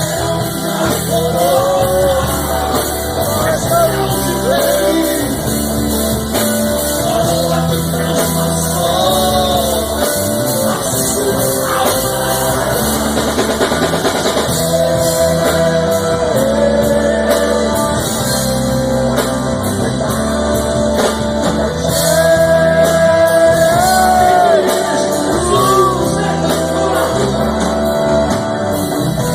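Live Christian worship song: a male lead voice singing over a band with drums and bass.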